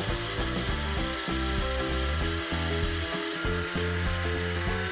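Food processor motor running at speed, grinding roasted hazelnuts that have gone sticky but are not yet smooth, on their way to hazelnut butter.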